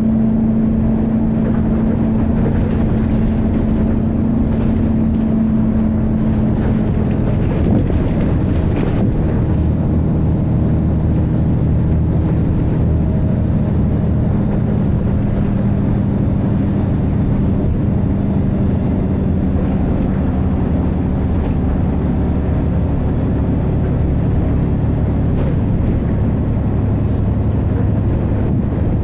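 Volvo B6LE bus engine and ZF automatic gearbox heard from inside the bus while under way, a loud steady drone whose pitch drops and changes around seven or eight seconds in, as with a gear change.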